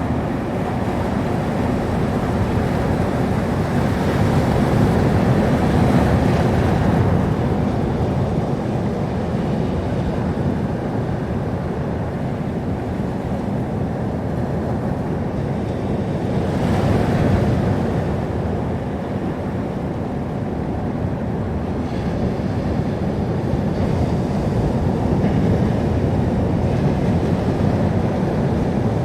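Sea surf: waves breaking and washing in a continuous rush, swelling louder twice, about five seconds in and again a little past the middle.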